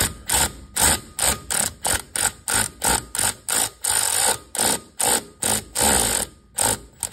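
Power ratchet run in short trigger bursts, about three a second, with a few longer runs near the middle, snugging up the driveshaft bolts before they are torqued.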